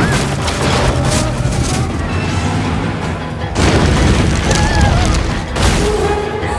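Disaster-film sound mix: deep rumbling and booms of destruction, with crashing debris under dramatic orchestral music. Two heavy crashes stand out, about three and a half and five and a half seconds in.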